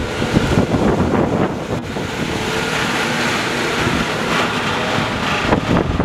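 Wind buffeting the microphone: a steady rushing noise with a low rumble.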